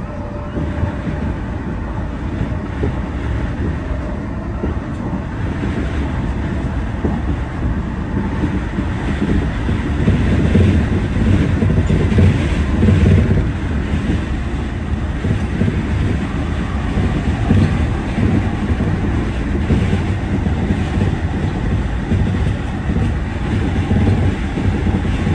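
Meitetsu electric train running along the line, heard from inside the driver's cab: a steady rumble of wheels on the rails and running gear, with rail clatter, a little louder for a few seconds in the middle.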